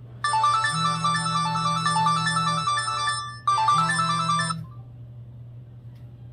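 Downloaded ringtone melody playing from a Samsung GT-E2121L phone's loudspeaker for an incoming call. It runs in two phrases and cuts off about four and a half seconds in, leaving a low steady hum.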